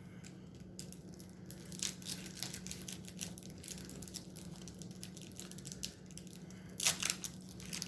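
Trading cards being handled and sorted: soft rustling and crinkling with many quick small clicks, and a louder crackle about seven seconds in.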